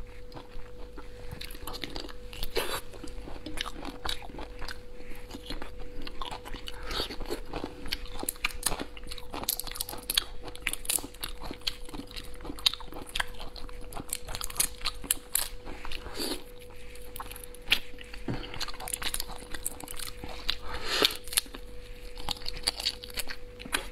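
Close-miked eating sounds: frequent sharp cracks and crackles of prawn shell being peeled and bitten, with chewing and sucking, over a faint steady hum.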